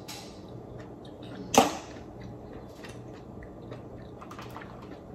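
Eating steamed black mussels: quiet chewing, with one sharp loud click about a second and a half in and a few faint clicks of mussel shell near the end.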